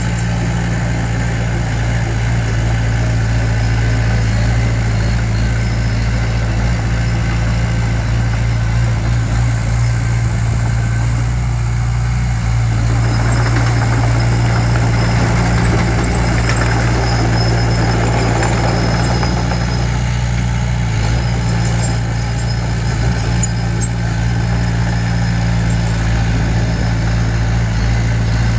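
Diesel engine of heavy earthmoving machinery running steadily and loudly, with a deep, even hum.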